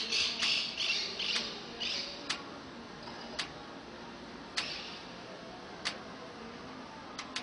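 Parakeets squawking: a quick run of harsh screeching calls over the first two seconds, one more near five seconds in. Sharp single clicks sound about once a second throughout.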